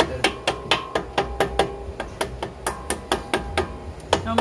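Rapid, even hammer blows, about five a second, each with a short ringing note.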